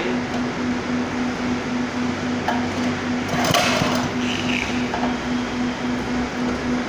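Small single-cylinder four-stroke petrol engine of the GX200 type running steadily, driving a belt-driven piston power-sprayer pump, with a regular pulsing beat and a few brief clatters.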